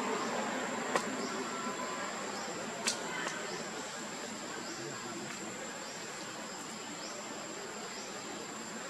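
Forest ambience with a steady high insect drone and short faint chirps repeating about once a second. Two sharp clicks come in the first three seconds.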